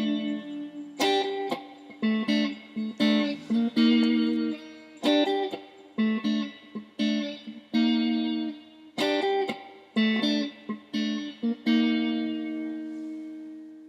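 A guitar played alone, a run of plucked notes and struck chords, each ringing briefly before the next. The last chord, near the end, is left to ring and slowly fade.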